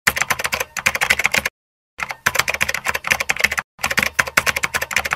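Rapid computer-keyboard typing clicks, stopping for about half a second near the middle and again briefly a little later, timed to text being typed out on screen.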